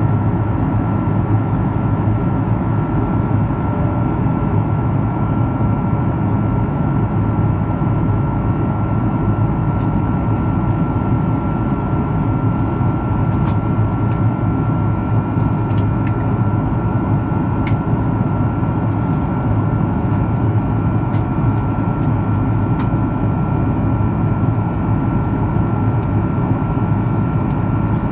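Airbus A330-300 in flight, heard inside the cabin at a window seat beside its Rolls-Royce Trent 700 turbofan engine: a steady low drone and rush of airflow with a thin, steady high whine over it.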